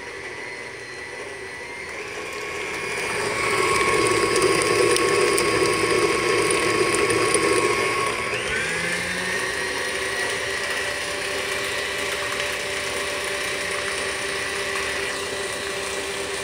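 KitchenAid tilt-head stand mixer running, its beater whipping cream cheese with sugar in a stainless steel bowl until it is smooth and free of lumps. It gets louder over the first few seconds, its tone shifts about halfway through, then it runs steadily.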